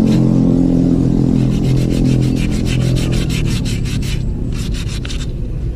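Sandpaper rubbed in quick back-and-forth strokes over a scooter's rear brake shoes, scuffing off the blackened, carbon-glazed surface so the lining grips again. The strokes stop briefly twice in the second half.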